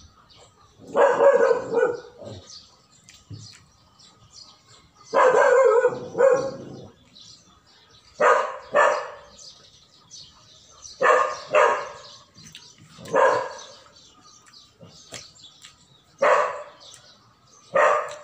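A dog barking repeatedly, single barks and quick pairs of barks every two to three seconds.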